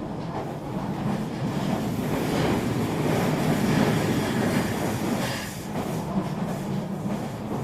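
A train hauled by a CC203 diesel locomotive passes, the engine's low hum under the running noise of wheels on rail, growing a little louder toward the middle.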